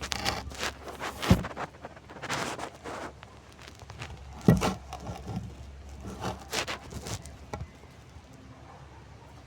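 Wood being handled: irregular scraping and rustling, with two sharp thumps, about a second in and again near the middle, then quieter toward the end.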